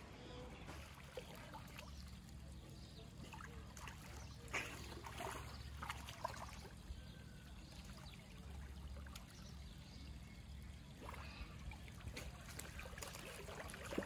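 Faint trickling and splashing of pond water as an otter swims and churns the surface, with a few brief sharper splashes.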